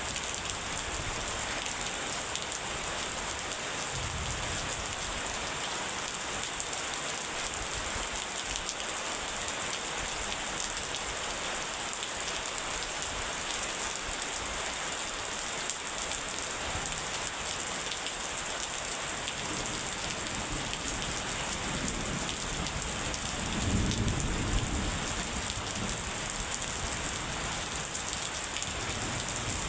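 Steady heavy rain hissing. A low roll of thunder rumbles up briefly about three-quarters of the way through.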